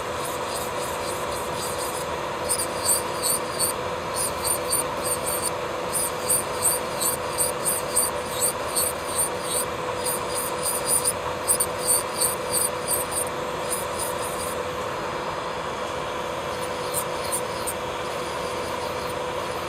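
Electric nail drill (e-file) running with a steady motor hum, its bit scraping against the nail in quick, short, repeated strokes between about two and a half and fourteen seconds in, taking off base gel.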